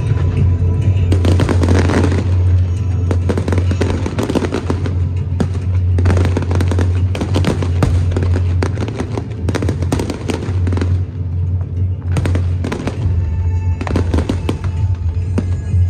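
Fireworks bursting and crackling in rapid runs of bangs, over loud music with a heavy, steady bass.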